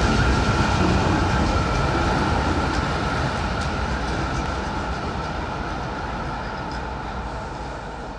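Duewag GT10NC-DU tram rolling along street track, passing close and then moving away. Its rolling rumble and a steady high tone fade out gradually.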